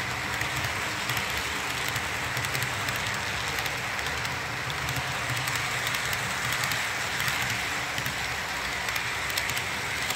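Model-railroad freight cars rolling steadily past on the track: a continuous whirring rumble of metal wheels on rail, with faint scattered clicks.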